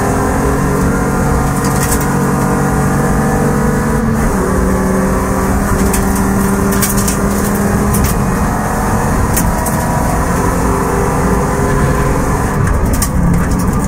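Car engine running steadily under load, heard from inside the cabin, its pitch shifting about four seconds in. Sharp clicks and rattles come through now and then.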